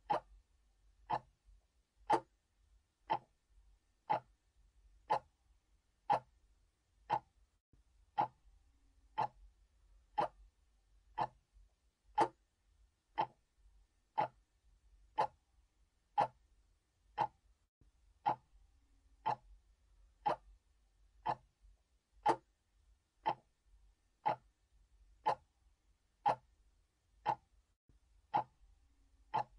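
Mechanical clock ticking steadily, about one sharp tick a second.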